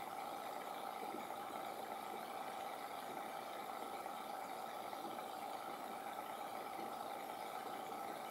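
Steady background hum with hiss, unchanging throughout and with no distinct events.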